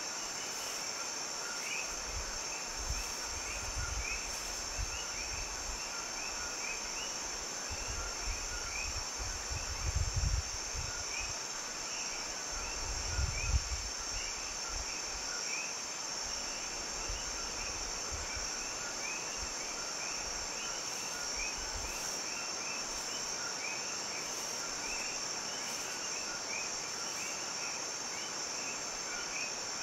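Insect chorus: a steady high-pitched drone with a rapid, continuous chirping beneath it. There are brief low rumbles about ten seconds and thirteen seconds in.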